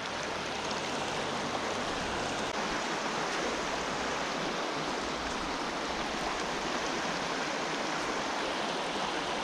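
Shallow, rocky mountain river running steadily over riffles, a constant even rush of water.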